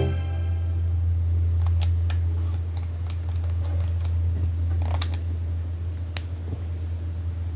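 A steady low hum with scattered faint clicks and ticks.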